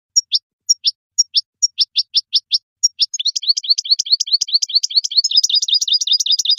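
European goldfinch singing: a run of short, sharp down-slurred notes, about three or four a second, that breaks into a rapid continuous twittering trill about three seconds in.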